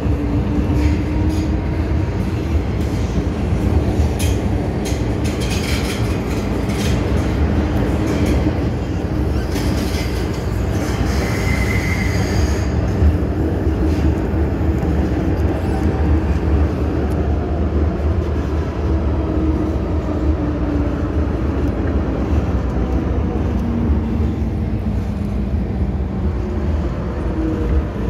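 MTR M-Train electric multiple unit running through a tunnel, heard from inside the carriage: a steady low wheel-and-track rumble with a faint motor hum. There are scattered clicks over the rails in the first half and a brief squeal about twelve seconds in, and the hum drops in pitch as the train slows into a station toward the end.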